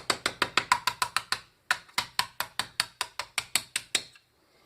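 Rapid, even hammer blows, about five or six a second, on a hollow sterling silver handle to shatter the resin filling inside. There is a short break about a second and a half in, and the blows stop about four seconds in.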